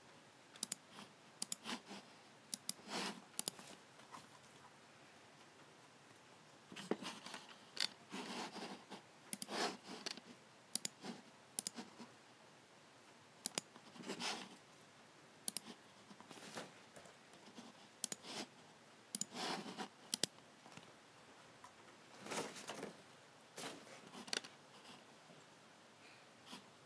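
Logicool G7 computer mouse buttons clicking irregularly, sometimes in quick clusters, with a few longer, softer rubbing sounds between the clicks.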